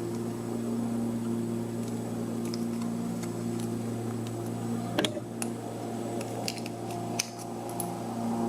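Scattered small metal clicks and taps as tools work at the retaining clip on the back of a rim lock cylinder, the sharpest about five seconds in and another just after seven. A steady low hum runs underneath.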